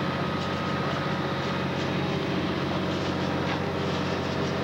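Fire trucks' engines running steadily to power the pumps and aerial ladders. The drone is unbroken, under a constant rushing noise.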